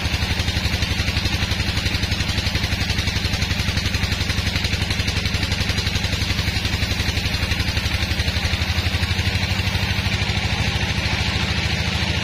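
Band sawmill running: its engine hums steadily with a rapid, even low pulse while the band blade cuts through a hardwood log.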